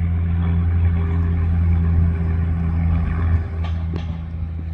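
Aircraft engine noise: a steady low drone that drops off after about three and a half seconds.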